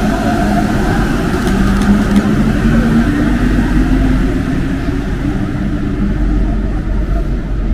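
Alstom MP-05 rubber-tyred metro train running on Paris Métro Line 14: a steady rumble of the running gear with the hum of the traction motors, which rises somewhat in pitch a couple of seconds in.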